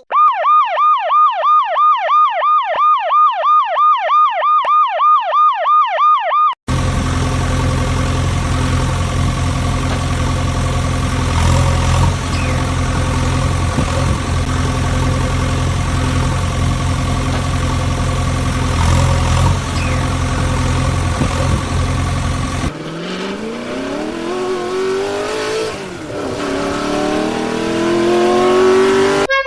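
A fast warbling siren, rising and falling about three times a second, stops abruptly after about six seconds. A steady low engine drone takes over. Near the end the engine pitch climbs as if revving up.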